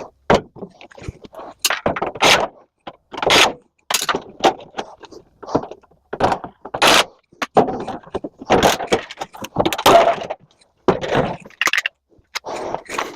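Irregular metal clanks, thunks and scraping as a microwave oven is pried and pulled apart with hand tools, loose sheet-metal parts knocking together. The sounds come in short uneven bursts with abrupt silences between them.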